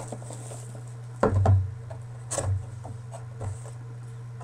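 A cardboard trading-card hobby box being handled: a few knocks and rubbing, the loudest a dull thump about a second in, over a steady low hum.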